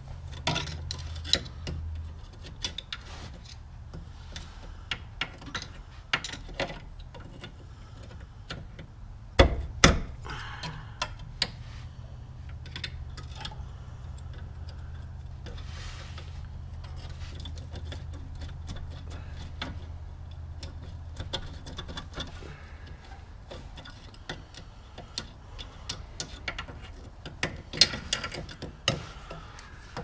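Pliers and metal brake parts clicking and clinking as a parking brake cable end is worked into place at the rear brake, in scattered irregular ticks, with two sharper knocks about a third of the way in and a quicker run of clicks near the end. A low steady hum sits underneath and fades out about two-thirds of the way in.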